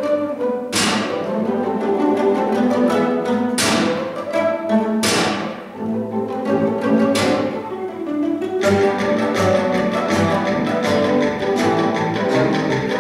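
A guitar orchestra of many classical nylon-string guitars playing together. Several sharp full chords ring out and fade in the first half, then the playing turns denser and more even from about two-thirds in.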